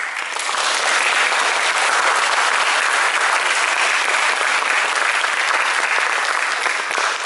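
Audience applauding, breaking out all at once at the end of a piece and holding steady.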